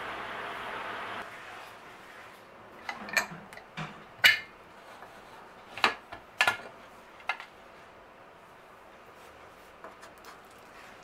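A steady hiss for about the first second, then a scatter of sharp clinks and knocks of a metal utensil against a cooking pot or dishes, the loudest near the middle.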